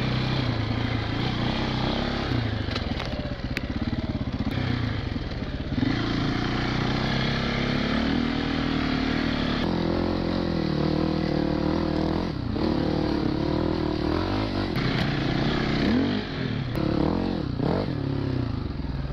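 Four-stroke enduro motorcycle engine revving up and down as the rider works the throttle on a trail ride. The revs drop briefly a few times, near the middle and toward the end.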